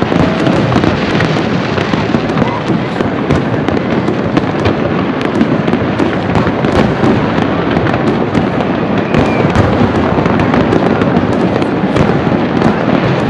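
Aerial fireworks bursting in quick succession: a dense, unbroken run of bangs and crackles.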